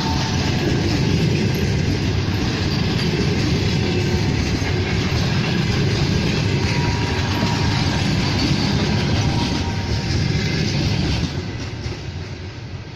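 Passenger coaches of a departing train rolling past on the rails, wheels clacking over the rail joints. The noise falls away sharply about eleven seconds in.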